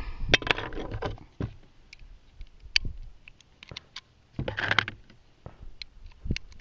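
Scattered sharp clicks of pistol cartridges being pressed one by one into a Glock magazine, with two stretches of rustling handling noise.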